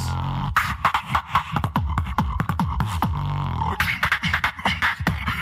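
Live beatboxing into a handheld microphone: a quick pattern of sharp clicks and snare-like strikes over deep held bass notes, with the bass coming in near the start and again around the middle.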